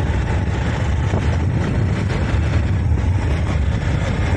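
Motorcycle running along a street, heard from the seat: steady engine and wind noise.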